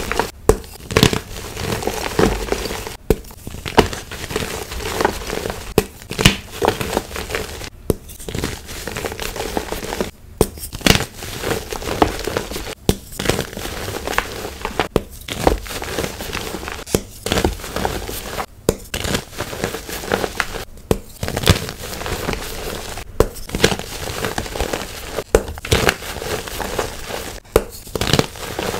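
Hands squeezing and crushing blocks of gym chalk: a continuous, irregular crunching and crumbling, thick with small sharp cracks as the blocks break apart in the fingers.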